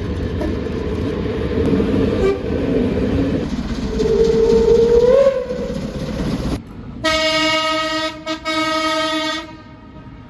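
Train running with a heavy rumble and a steady droning tone that rises briefly about five seconds in. Then, after an abrupt change, a train horn sounds one loud single-pitched blast of about two and a half seconds, broken twice for an instant.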